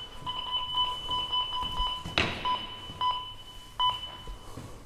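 An electronic device beeping in short, uneven pulses of a high two-tone beep, with one sharp knock about two seconds in.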